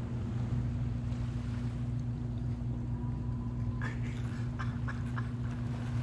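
A steady, low engine-like hum running without a break, with a few light clicks about four to five seconds in.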